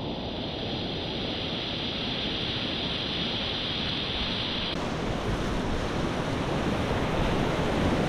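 Rushing whitewater of a river rapid heard close up from a kayak, with wind noise on the microphone. The sound changes abruptly a little past halfway through.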